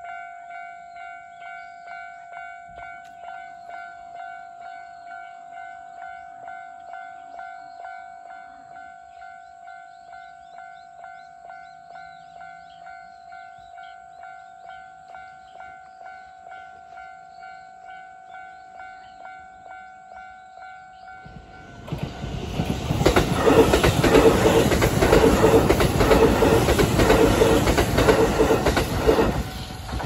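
Japanese level-crossing warning bell ringing at about two strokes a second; about 21 seconds in, a Kintetsu Osaka Line electric train passes through the crossing loudly for about eight seconds, drowning out the bell, before the bell is heard again at the end.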